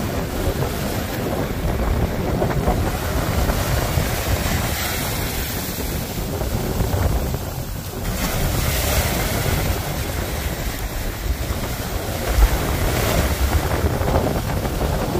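Ocean surf breaking and washing up the beach, with wind buffeting the microphone in a steady low rumble. The sound swells and eases every few seconds.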